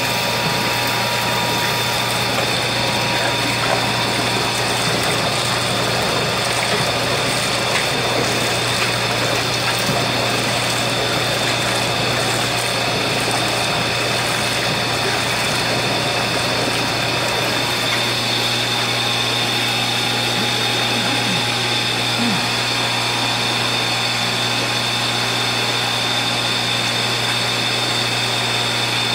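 Rotifer-culture water running steadily from a hose into a nested mesh filter bag, over a constant motor hum.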